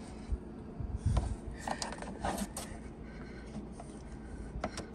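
Plastic trim removal tool scraping and knocking along a car's plastic rocker panel molding while being worked toward the next retaining clip: scattered light clicks and scrapes, busiest in the first half and again near the end.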